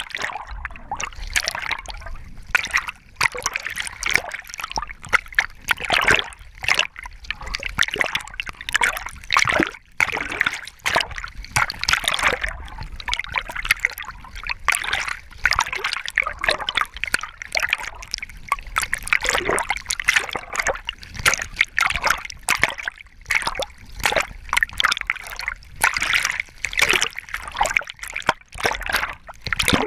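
Water splashing and sloshing around a camera strapped to a swimming Labrador retriever, the lens riding at the waterline. A constant run of uneven splashes, loud and close.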